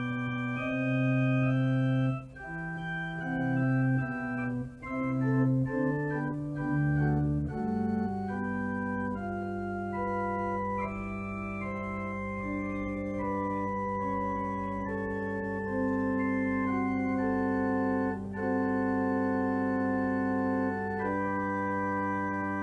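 Organ playing slow, held chords with a melody moving above them; about eight seconds in, a low bass note comes in and is held under the changing chords.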